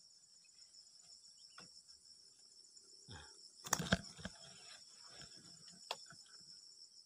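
Insects chirring steadily at a high pitch, with a short, loud rustling clatter just before four seconds in and a single click near six seconds.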